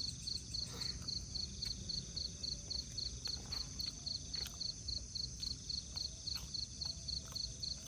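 Night insects chirping steadily in a fast, even pulse of about four a second, with a few faint clicks of small objects being handled.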